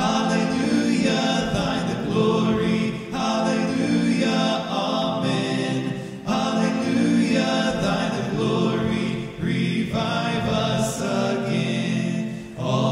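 Unaccompanied voices singing a hymn a cappella, in sustained phrases of about three seconds with short breaks for breath between them.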